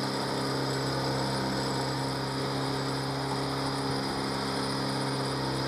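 Honda 8 hp four-stroke outboard kicker motor running steadily under way at low cruising speed, an even engine hum over the rush of water and wind.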